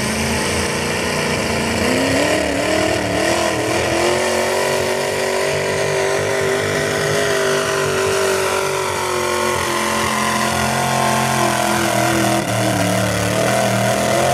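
Pulling tractor's engine running hard at high, steady revs, its pitch wavering slightly with a brief dip and rise about two seconds in.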